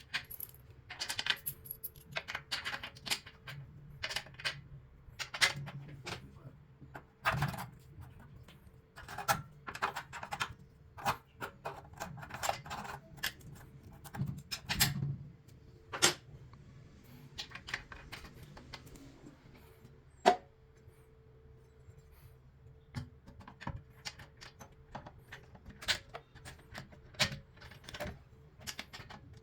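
Irregular metallic clinks, taps and knocks, as of hand tools and metal plumbing fittings being handled and set down, over a faint steady hum. One sharper knock about twenty seconds in is the loudest.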